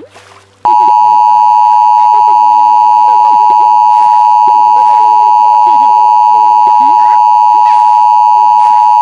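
Emergency Alert System attention signal: a loud, steady two-tone beep starts about a second in and holds without a break. It announces that an emergency alert message, here a tornado warning, is about to follow.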